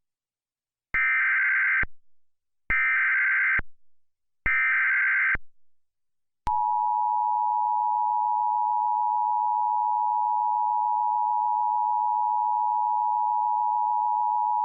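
Emergency Alert System SAME header: three short bursts of warbling digital data tones, each just under a second, encoding a flash flood warning for San Diego and Riverside counties. These are followed by the EAS two-tone attention signal (853 and 960 Hz together), held steady for about eight seconds.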